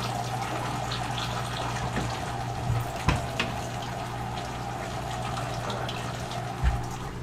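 Water running steadily down a 1-inch aquarium overflow into the sump below, the overflow draining again after being cleared, over a steady low hum. Two brief knocks, one about midway and one near the end.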